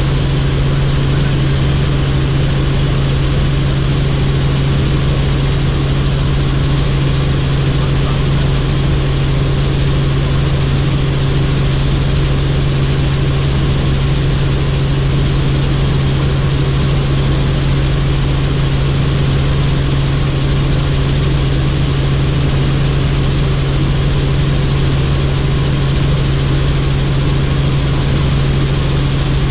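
Helicopter in flight: a steady, unbroken engine and rotor drone with a strong low hum, holding constant throughout.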